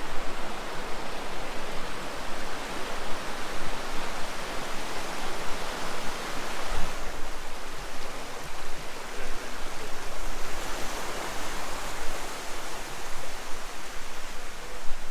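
Waterfall flowing steadily: a dense, even wash of falling water.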